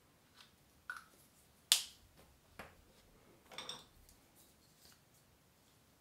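Small clicks and taps of make-up containers and caps being handled on a counter. The loudest is a sharp click just under two seconds in, followed by a short clatter about two seconds later.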